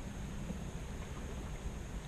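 Steady outdoor background noise: an even rushing hiss over a low rumble.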